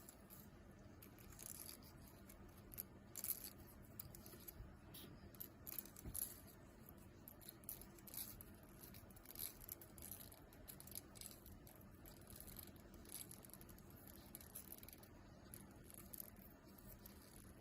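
Faint, irregular small clicks and light scraping of fine tools handling the parts of a mechanical watch during a service.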